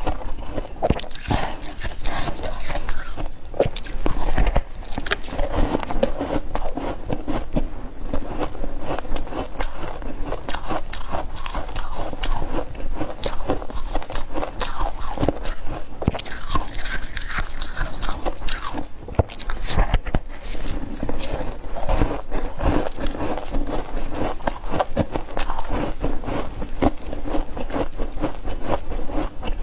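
A person biting and chewing freezer frost and ice, a dense, irregular run of crisp crunches.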